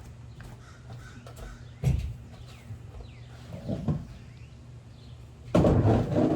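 Patio furniture being moved around on a wooden deck: a knock about two seconds in, and a louder clattering scrape near the end. Faint bird chirps are heard.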